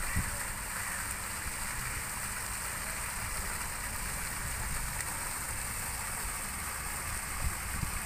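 Garden fountain jet splashing back into a pond: a steady hiss of falling water.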